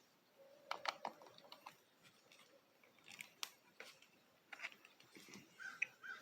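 Faint scattered clicks and rattles of a compact jump starter and its clamp cable being handled and plugged in.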